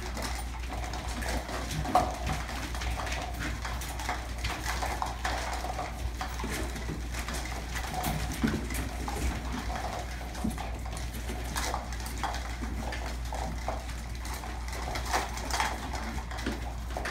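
A litter of terrier puppies at play: many light scattered clicks and knocks, with occasional small puppy vocal sounds.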